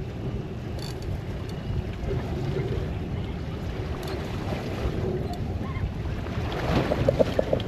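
Steady low rumble of a fishing boat at sea, with wind buffeting the microphone and water washing against the hull. A quick run of short clicks comes near the end.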